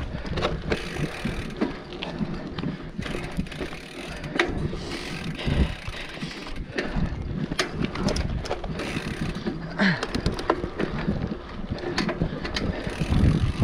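Mountain bike descending a dirt forest trail: tyres running over dirt and roots, with the frame and chain rattling and a ratcheting clicking from the drivetrain as it coasts. Scattered sharp knocks from bumps throughout.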